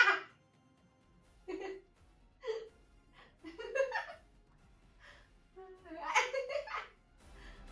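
A woman laughing in short bursts while the bare sole of her foot is tickled with long fingernails, the longest bout near the end.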